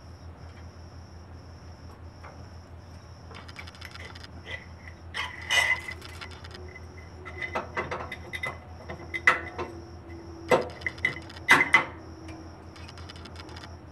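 Metal clinks, taps and scrapes as the cylinder of a 150cc GY6 engine is worked off its long head studs and over the piston, with several sharp knocks between about five and twelve seconds in. A steady low hum runs underneath.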